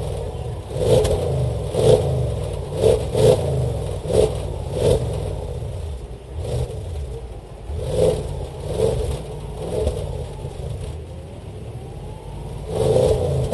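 2012 Audi S7 Sportback's 4.0-litre twin-turbo V8, heard at the tailpipes, idling between quick throttle blips with the car standing still. About six short revs come in the first five seconds, a few more around eight to nine seconds, and another near the end.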